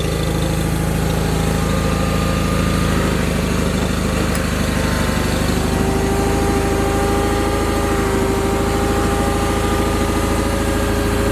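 John Deere 318 garden tractor's two-cylinder Onan engine running steadily at idle. About halfway through, a steady whine joins it and holds.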